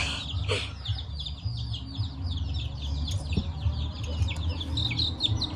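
Birds chirping rapidly and continuously outdoors, a dense chatter of short high calls several a second. A single sharp click sounds about three and a half seconds in.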